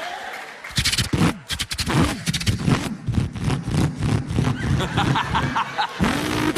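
A man imitating a V8 Holden Torana engine with his voice: a rapid, sputtering burble starting about a second in, then a rev that rises and falls near the end.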